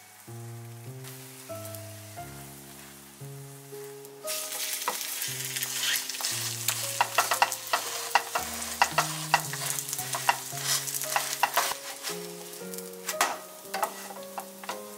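Thai banana roti frying in a nonstick pan, sizzling with many sharp crackles that start suddenly about four seconds in, over steady background music.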